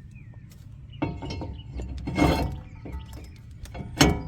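New drilled brake rotor clanking against the truck's wheel hub as it is slid on and lined up: three ringing metal knocks, the loudest near the end.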